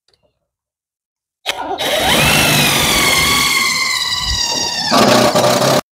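Cordless drill running under load into the sheet-metal panel of an A/C condenser cabinet. Its motor whine climbs quickly, then sags slowly as it bites. The sound changes about 5 seconds in and stops abruptly.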